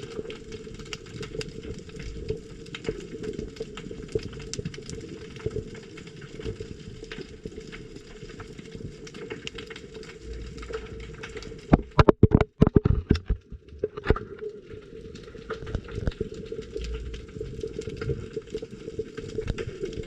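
Underwater sound picked up by a submerged camera: a constant crackling haze of small clicks with a low muffled rumble. A cluster of loud knocks comes about twelve to fourteen seconds in.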